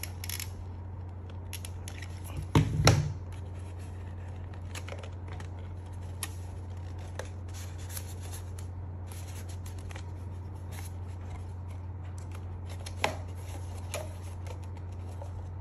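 Handling of a plastic cup and stiff craft paper as the paper is pressed and glued around it: rustling and scattered light clicks, with a few knocks on the table about three seconds in. A steady low hum runs underneath.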